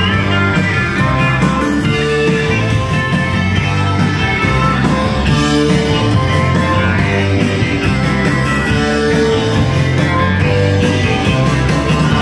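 Live rock band playing loud, guitar-led, with a heavy low end.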